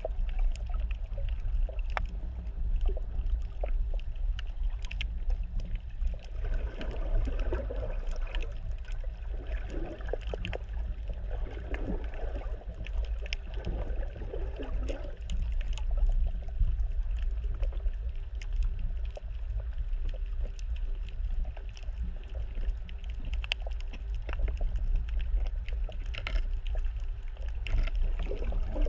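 Muffled underwater sound heard through a GoPro's sealed waterproof housing: a steady low rumble of moving water with many small scattered clicks and crackles, and a few duller swells of water movement.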